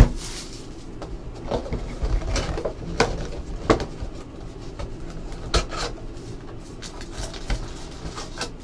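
A cardboard trading-card box (a 2015 Panini Certified football hobby box) being opened and handled on a table: scattered sharp taps and knocks of cardboard, with rustling in between.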